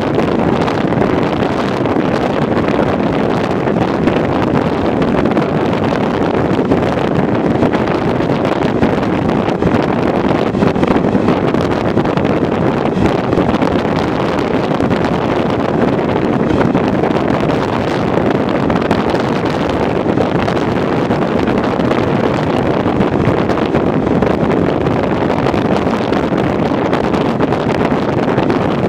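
Steady rush of wind on the microphone at the open window of a moving train, mixed with the train's even running rumble.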